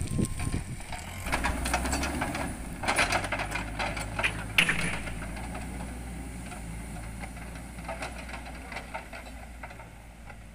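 CAT 426F2 backhoe loader's diesel engine running steadily as the machine moves off, with loose clattering and metal rattles for the first few seconds and one sharp clank near the middle. The engine sound slowly fades toward the end.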